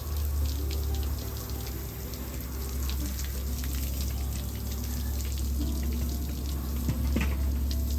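Water spraying onto a Jeep Wrangler's body as it is rinsed off: a steady hiss with fine spatter, over a steady low hum.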